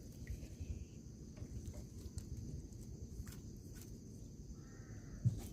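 A steady drone of crickets or cicadas over low rustling and scattered clicks. Near the end an animal bleats briefly, and a sharp click follows.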